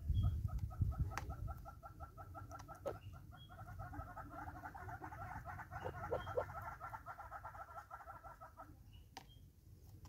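Southern yellow-billed hornbill calling: a long, fast run of clucking notes that grows louder about halfway through and stops near the end. Low thumps and rumble in the first second.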